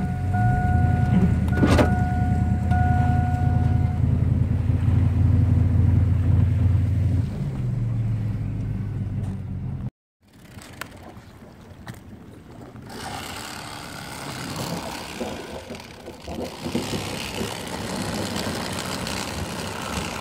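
Inside a pickup truck's cab, a steady low hum from the running truck, with an electronic chime beeping in an even on-off pattern for the first few seconds; the hum drops in level about seven seconds in. About ten seconds in the sound cuts out for a moment and gives way to a quieter, irregular noisy background with scattered light knocks.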